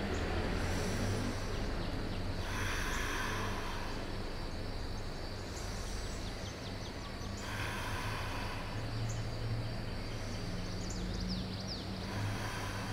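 Slow deep breathing held in a yoga pose, a soft rush of breath about every five seconds, over a steady low room hum with a few faint high chirps.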